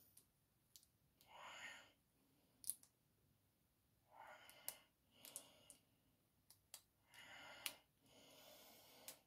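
Near silence with quiet handcraft sounds: a handful of short light clicks from fingers handling small paper die-cuts, and several soft breaths.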